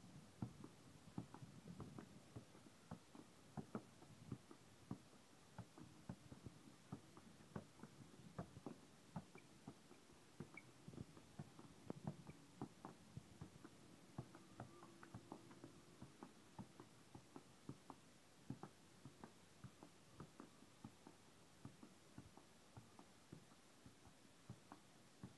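Faint, irregular soft taps of a football being kept up by a child's foot and knee, about two a second.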